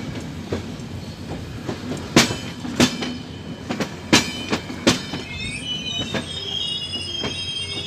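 Railway passenger coaches rolling past close by, their wheels giving irregular sharp clacks over the rail joints. About five seconds in, a high-pitched metallic squeal of several tones sets in and holds.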